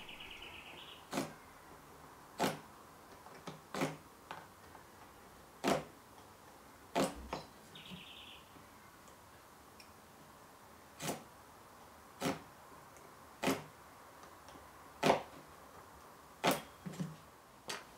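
Marking knife and small steel square clicking and tapping against hoop pine kumiko strips as knife marks are scored across them: a series of quiet, sharp clicks about a second apart, with a pause in the middle, and two brief higher scratchy sounds.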